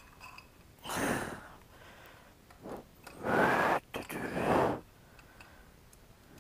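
A man's forceful, strained breaths and grunts, four bursts with the loudest two near the middle, from the effort of leaning on a breaker bar to break loose a motorcycle's rear axle nut.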